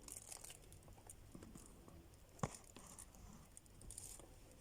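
Near silence with faint handling ticks and one sharp knock about halfway through, as objects are moved and set down.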